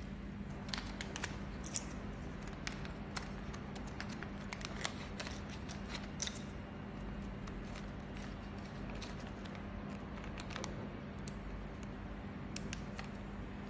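Thin clear plastic zip-lock bag being handled and its zipper seal pressed shut: scattered sharp crinkles and clicks, most in the first half and again near the end, over a steady low hum.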